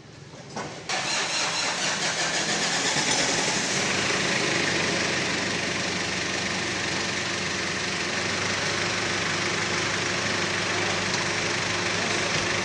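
Toyota Avanza engine, freshly installed, catching about a second in and then running steadily at idle.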